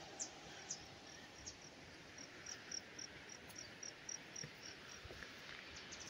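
Faint insect chirping in the forest: short high chirps repeated evenly about four times a second through the middle, over a steady outdoor hiss.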